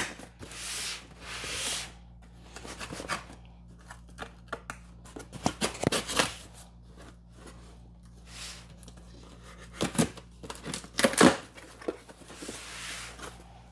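Folding knife slitting packing tape on a cardboard box, a hissing scrape with each cut, broken by a few sharp knocks of cardboard. Near the end the box flaps are pulled open.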